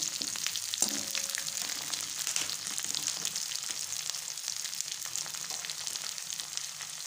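Chopped onion, garlic, green chillies and whole spices sizzling and crackling steadily in hot oil in a kadhai over a high flame, turned with a perforated spatula as they brown for the kadhi tempering.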